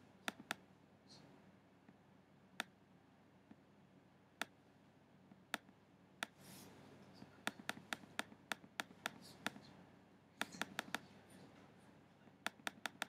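Quiet computer mouse clicks, some single and some in quick runs of three or four a second, as on-screen arrow buttons are clicked repeatedly. A soft rustle comes in twice.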